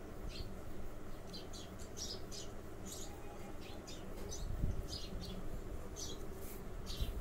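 Pencil scratching on drawing paper in short, quick strokes, about two a second at an irregular pace, over a low steady hum.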